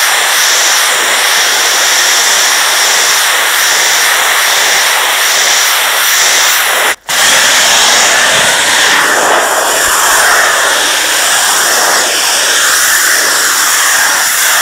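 Pressure washer lance blasting a high-pressure water jet onto porcelain patio slabs, a loud steady hiss that cuts out for an instant about halfway through.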